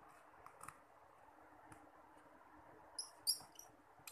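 Precision screwdriver working a tiny screw on a smartphone's mainboard: a few faint ticks, then about three seconds in, a quick cluster of short high squeaks and clicks as the screwdriver tip turns in the screw head.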